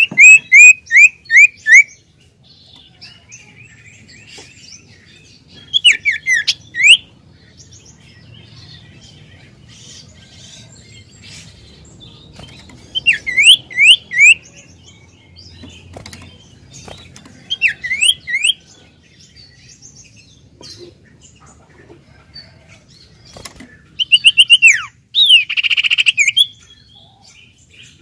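An iora (cipoh) calls in short bursts of four or five quick, sharp, whistled notes that sweep in pitch, with a burst every few seconds. The last burst, near the end, runs into a harsh buzzy note.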